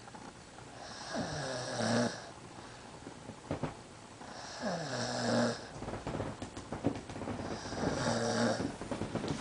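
A sleeping man snoring: three snores about three and a half seconds apart, each dropping in pitch and then holding a steady low drone, with quieter breathing between them.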